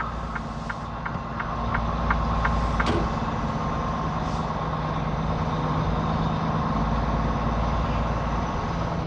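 Semi truck's diesel engine running at low speed, heard from inside the cab, getting a little louder about two seconds in. Quick even clicks, about three a second, run through the first three seconds.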